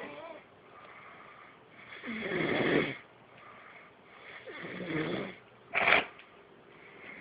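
Snoring: two long snores, about two and four and a half seconds in, then a short, sharp snort near six seconds.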